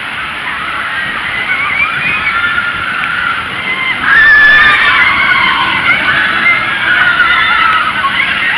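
Steel roller coaster train passing on its track, with riders screaming in high wavering cries; it gets suddenly louder about four seconds in as the train comes close.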